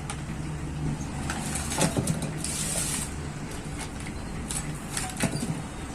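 A few sharp metal clinks and a short hiss over a steady low mechanical hum.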